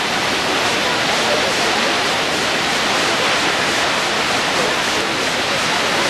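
Kegon Falls, a tall waterfall, pouring down onto rock: a loud, steady, even rush of falling water.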